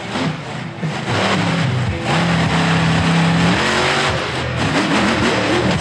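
Monster truck engine revving hard, its pitch swinging up and down, held steady for over a second in the middle, then climbing again as the truck powers up onto the crushed cars.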